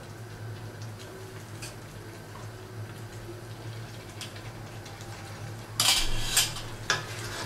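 A plastic spatula scraping and knocking against a non-stick pot as chicken pieces are stirred, loudest about six seconds in, after a few light taps, over a steady low hum.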